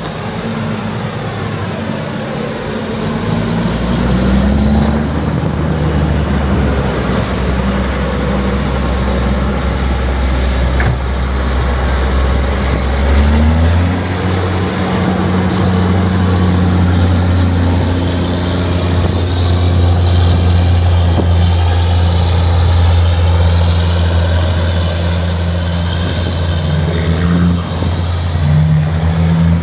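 Heavy diesel farm machinery running steadily under load; the engine note rises about 13 seconds in and holds at the higher pitch.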